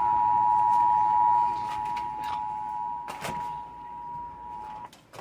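Emergency Alert System attention signal: the steady two-tone alarm of 853 and 960 Hz sounding together, which cuts off abruptly near the end. It heralds a severe thunderstorm warning.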